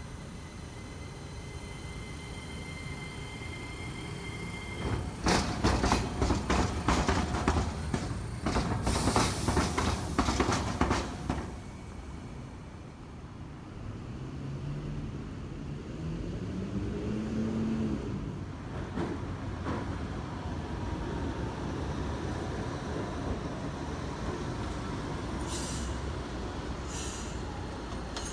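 A rail vehicle rolls over a diamond crossing, where two tracks cross at grade. Its wheels clatter rapidly over the rail gaps for several seconds with a brief high wheel screech, then a rising motor whine follows as it moves on.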